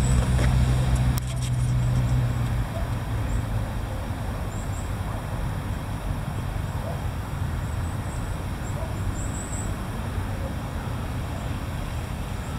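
Steady road-traffic noise, with a vehicle's low engine hum that fades out in the first two seconds. A couple of sharp clicks come about a second in, and a few faint high chirps sound now and then.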